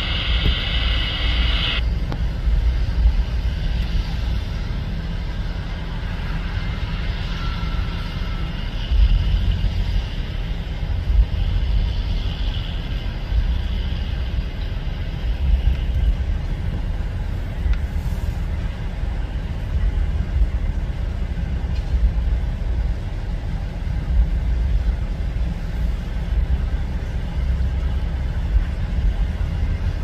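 Distant John Deere tractor pulling a soybean planter across a wheat-stubble field: a low, uneven rumble that surges irregularly.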